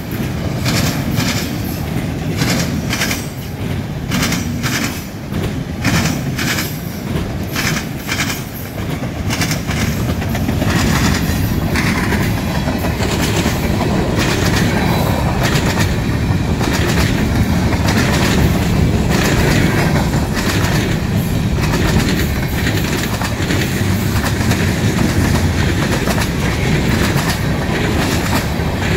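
Freight train cars rolling past close by, auto-racks then covered hoppers: steel wheels clacking in a quick, uneven rhythm for roughly the first nine seconds, then a steadier, denser rolling rumble and rush.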